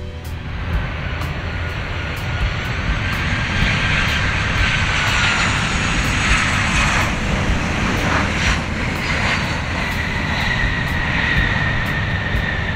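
Boeing 737-800's CFM56-7B turbofan engines on landing, a jet roar with a high whine. The whine rises in pitch as the plane closes in, is loudest about six seconds in, then falls slowly as it moves away.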